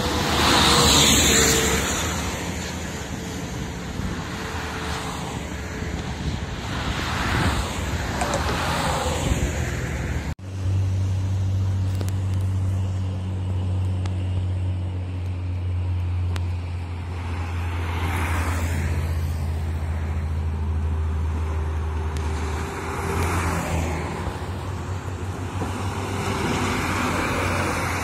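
Road traffic passing on a highway: a light truck goes by close about a second in, the loudest moment, followed by more vehicles passing in swells. After a sudden break about ten seconds in, a steady low hum underlies the traffic for a while, and a coach bus draws near at the end.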